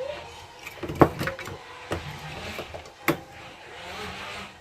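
Rechargeable AA batteries being pressed into the plastic battery holder of an electronic door lock: a few sharp clicks and knocks with soft handling noise between, the loudest about a second in and another about three seconds in.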